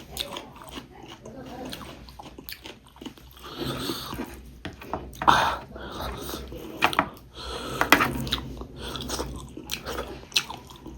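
Close-miked mouth eating sounds: irregular chewing and biting with crisp crunches.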